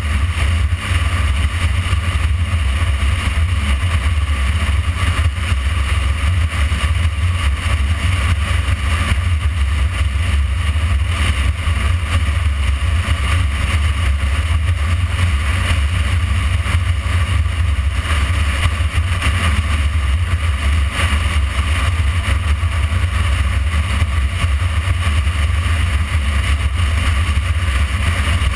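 Motorcycle cruising at a steady speed, heard from a camera mounted behind its windscreen: an even, loud rush of wind and engine noise with no clear change in engine speed.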